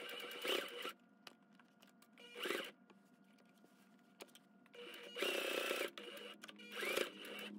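Electric sewing machine stitching through folded cotton strap fabric in short runs, starting and stopping about four times as it sews securing stitches.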